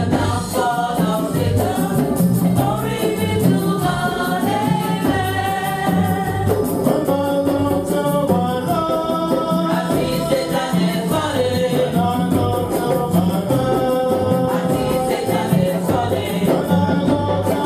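Congregation or choir singing a gospel hymn in unison, with a steady drum beat and percussion accompaniment.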